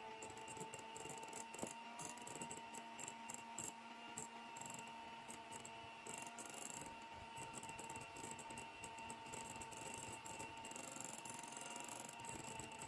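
Electric hand mixer running steadily, its beaters whipping mascarpone and cream in a glass bowl, with a steady motor whine. There is a single brief click about a second and a half in.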